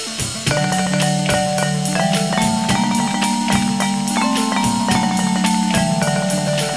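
Instrumental background music: a quick, steady beat of ticking percussion under held notes, getting louder about half a second in.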